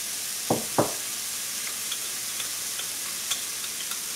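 Pancake batter sizzling steadily in a hot, oil-sprayed non-stick frying pan, with scattered small pops and ticks. Two short falling chirps sound a little after half a second in.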